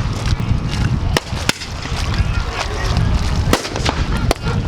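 Model sailing warships' miniature cannons firing: several sharp bangs at irregular intervals, about a second in and again in the last second and a half. Strong wind buffets the microphone throughout.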